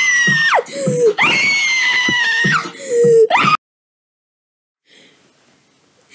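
A child's shrill, high-pitched scream: two long held shrieks that each drop sharply in pitch at the end, then a short rising shriek that cuts off abruptly about three and a half seconds in. Faint breathy puffs follow near the end.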